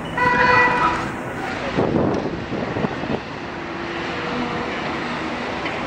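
Cat 325D excavator's diesel engine and hydraulics running steadily while it digs. A brief, loud high-pitched whine sounds near the start, and a rough scraping stretch with a few knocks comes about two to three seconds in.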